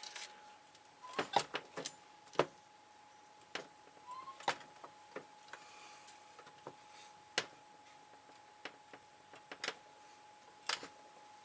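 Light clicks and knocks of metal parts and tools being handled, a dozen or so at uneven intervals, over a faint steady high hum.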